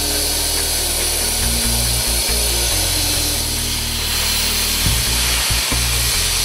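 Hypertherm plasma torch on a CNC cutting table cutting steel plate: a steady, loud hiss. Background music with a steady low bass runs under it.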